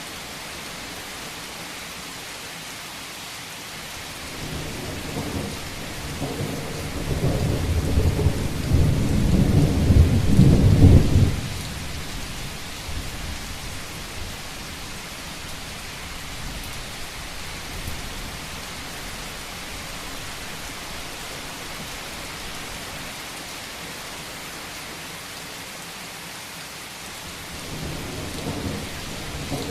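Steady rain drumming on a roof, with a long roll of thunder that builds from about four seconds in, is loudest near the middle, then dies away; another rumble of thunder starts near the end.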